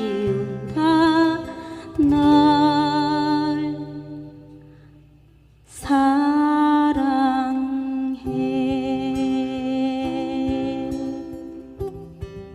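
Wordless vocal humming of long held notes with a wavering vibrato over acoustic guitar accompaniment, part of a song's closing passage. The voice fades out about halfway and comes back in about two seconds later.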